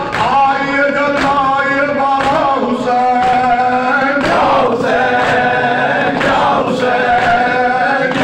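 A male reciter sings a Shia mourning lament (nauha) through a microphone PA, with a group of men chanting along in long held notes. Sharp slaps of chest-beating (matam) keep time about once a second.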